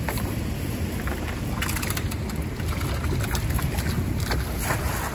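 Steady low rumble of wind on the microphone over flowing river water, with scattered short splashes and drips of water from a wet cast net being gathered up.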